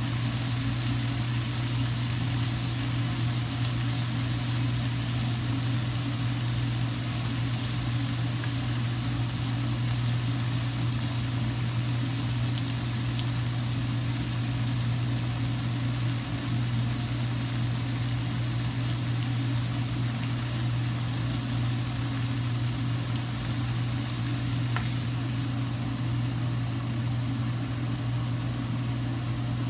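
Beef steak pieces sizzling steadily in a frying pan, over a constant low hum that is the loudest part of the sound. A few faint clicks come from the tongs and scissors.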